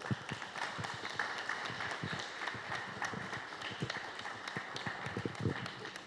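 Audience applauding steadily, many hand claps merging into a continuous patter.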